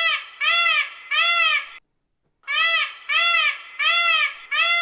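Peacock calling: loud, wailing calls that each rise and fall in pitch, three in quick succession, a brief pause, then four more.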